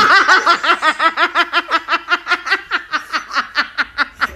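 A person laughing hard: a long, unbroken run of quick, high-pitched "ha" pulses, several a second.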